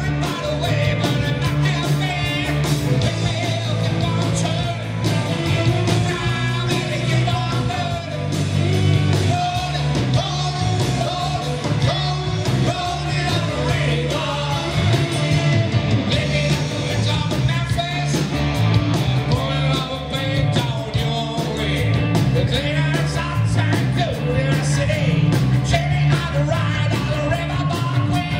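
Live rock band playing, with electric guitars, bass guitar and a drum kit.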